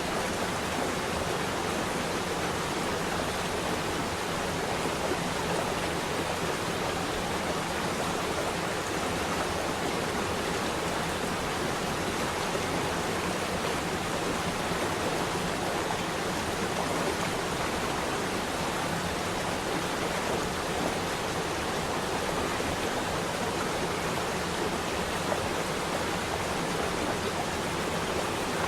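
Flowing water rushing steadily, an even, unbroken wash of noise with no splashes or changes.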